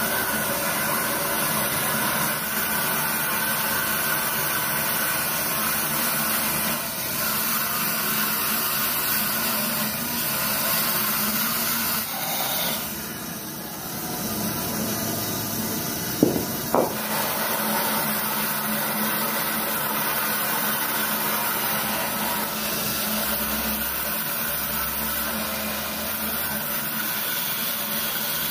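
Bandsaw running and cutting a curve through a thick wooden slab: a steady blade-and-motor noise that eases briefly near the middle, with two sharp clicks a little after that.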